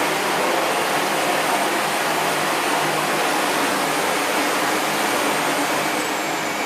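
SEBO Felix bagged upright vacuum cleaner running steadily: a steady rush of air with a thin high whine on top, which drops slightly in pitch near the end.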